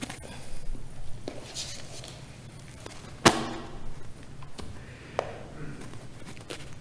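Handling noise at a lectern microphone: a book being picked up and opened with scattered rustling, one sharp knock about three seconds in and a smaller click about two seconds later.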